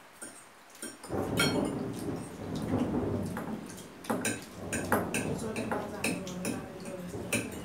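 Thunder rumbling, setting in suddenly about a second in and rolling on, with forks clicking and scraping on plates.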